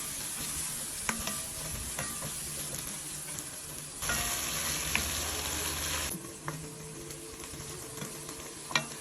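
Food sizzling in hot oil in a pot while it is stirred, with a spoon clicking against the pot now and then. The sizzle grows louder for about two seconds around the middle.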